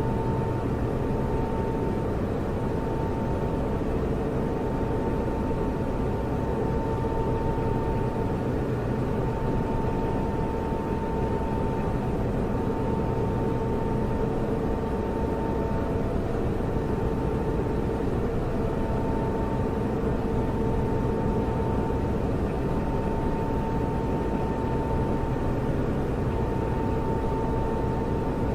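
Computer server running: an even whir of cooling fans with a low hum and a thin steady tone riding above it.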